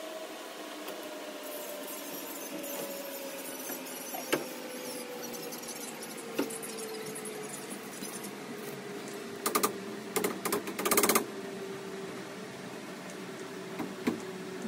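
Panels of a plastic cube-style wardrobe knocking and clicking as they are handled and fitted, with a quick run of sharp plastic clicks about two-thirds of the way through. A steady hum slowly dropping in pitch runs underneath.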